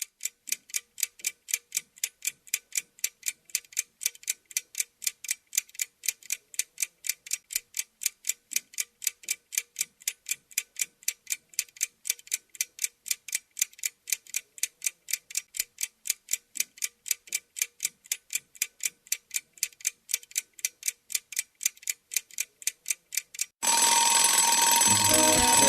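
Alarm clock ringing in rapid, evenly spaced pulses, about four a second, going on and on to wake a sleeper. Music starts abruptly near the end.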